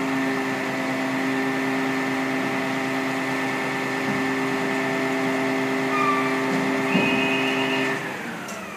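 Fire service hydraulic platform's engine and hydraulic pump running steadily with a held whine while the boom lowers the crew cage. Near the end the pitch slides down and the sound dies away as the machine winds down.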